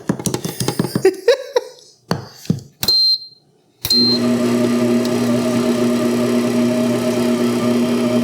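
A few clicks and taps, then two short high beeps from a stand mixer's controls. About four seconds in the mixer's 600-watt motor starts and runs with a steady hum, mixing a heavy cookie dough.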